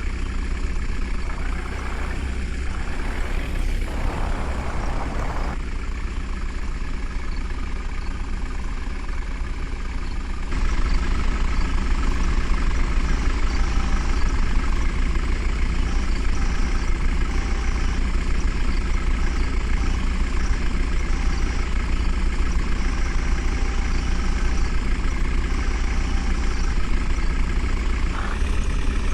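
Heavy diesel engine running steadily, becoming abruptly louder about ten seconds in.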